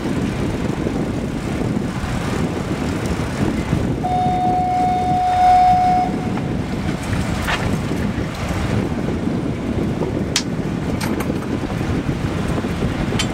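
Boat's outboard motor running steadily under way, with wind and water noise. About four seconds in, a steady high tone sounds for about two seconds, and a few sharp clicks come in the second half.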